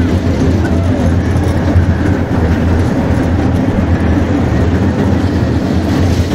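Amusement park ride running with a steady, loud low rumble and rattle.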